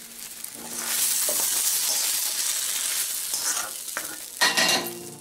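Cooked tomatoes sizzling in a hot kadai as a spoon scrapes them out. Near the end come a few sharp knocks of the spoon against the pan and mixer jar.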